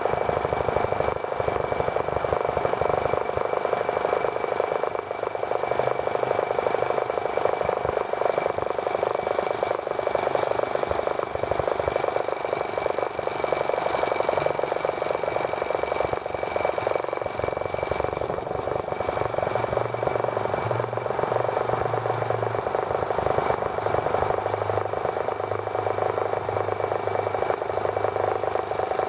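Small gasoline-fuelled model engine of a T26 toy tractor running steadily under way, a fast even buzz with a thin high whine over it. Wind buffets the microphone with an uneven low rumble.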